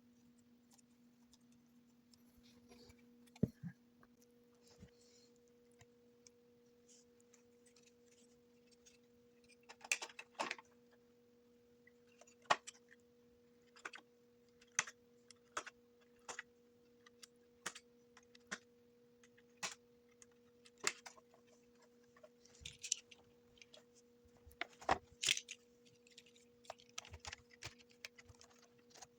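A steady low electrical hum with scattered light clicks and taps, coming about once a second through the middle stretch.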